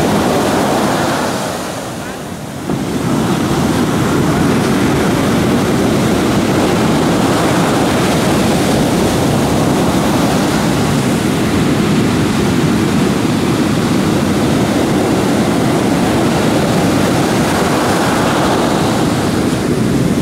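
Heavy surf breaking and washing over a sandy beach around a grounded wooden fishing boat, with wind on the microphone. The sound is a loud, continuous wash. It dips briefly about two seconds in, then comes back suddenly.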